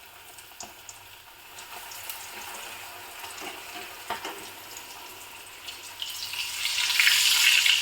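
Flour-coated chicken pieces frying in hot olive oil, a steady sizzle that swells sharply louder about six seconds in.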